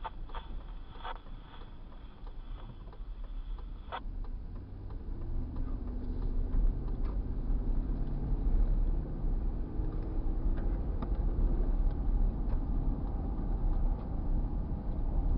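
Car driving, heard from inside: a low engine and road rumble that grows louder about four seconds in, with a faint engine tone rising as it picks up speed. There is a single click near the four-second mark.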